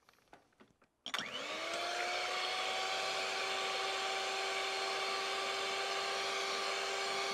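Electric hand mixer switched on about a second in, its motor spinning up with a quick rising whine and then running at a steady pitch as its beaters whisk egg whites toward stiff peaks. A few light handling clicks come just before it starts.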